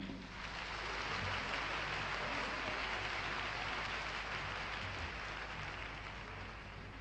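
Audience applauding: dense, even clapping that builds over the first second and slowly fades.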